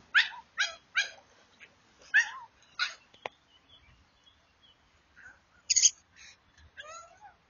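A dog giving a series of short, high whining yelps: five in the first three seconds, then a louder, harsher yelp near six seconds and a few more toward the end.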